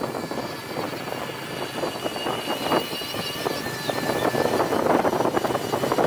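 Ride-along noise on a paved road: wind buffeting the microphone over a rough rumble, with a thin steady high whine through the first few seconds.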